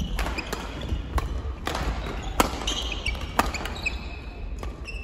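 Doubles badminton rally: rackets strike the shuttlecock in sharp clicks roughly every half second to a second, with sports shoes squeaking on the wooden court floor between the shots.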